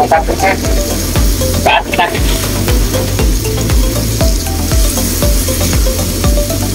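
Background music with a steady beat, over the sizzle of water spinach and sliced beef stir-frying in a wok as a spatula turns them.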